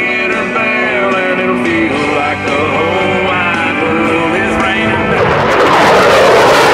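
A rock song with guitar and singing. About five seconds in, the rising roar of an F-15 Eagle's twin turbofan engines drowns it out as the jet passes.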